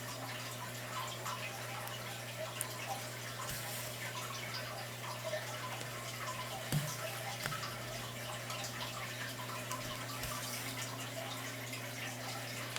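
Faint rustling and light ticking of yarn and a needle being drawn through plastic canvas while stitching, over a steady low electrical hum. A couple of soft knocks come about seven seconds in.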